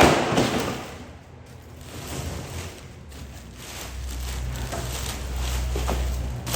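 A loud bang that dies away over about a second, then a low steady drone that comes in about four seconds later and carries on.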